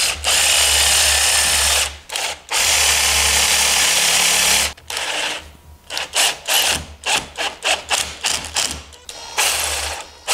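Power drill-driver running in two steady runs of about two seconds each, then a string of short stop-start bursts, working screws into a hardwood stool frame.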